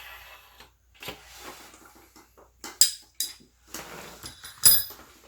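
Metal-on-metal scraping and sharp ringing clinks from a Samsung dryer drum support roller being worked on its steel shaft. The roller is not self-lubricating, so it rubs on the shaft. Softer rubbing comes first, then a few loud clinks, the loudest near the middle and just before the end.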